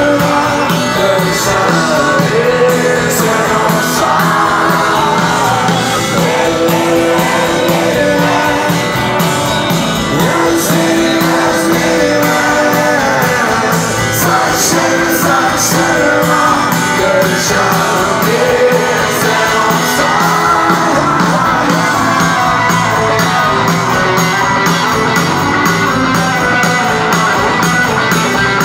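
Rock band playing live: electric guitars and drums under a sung lead vocal.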